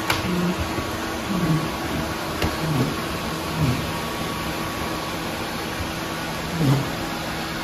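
Several robot vacuums running together: a steady whir of motors and brushes, with a few short low-pitched sounds over it, the loudest near the end.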